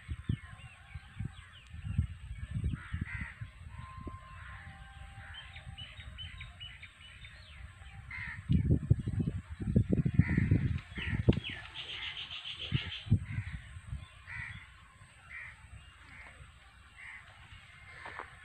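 Several birds calling and chirping in the trees: many short calls, with a quick trill a little past the middle. Low buffeting on the microphone comes and goes and is loudest about halfway through.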